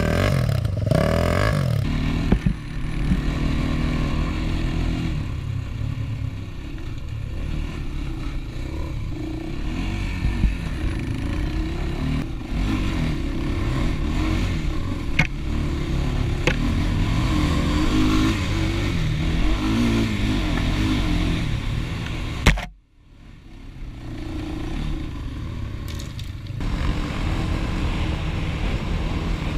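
ATV engine running and revving as the quad is ridden over rough ground, with the machine rattling. A sharp click and a brief dropout about three quarters of the way through, after which the engine sound comes back.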